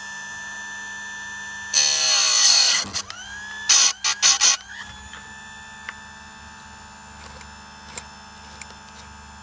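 Electric chainsaw-chain grinder's wheel running with a steady hum. About two seconds in it grinds a cutter tooth harshly for about a second, then bites in three more times in quick short touches, and a few light clicks follow.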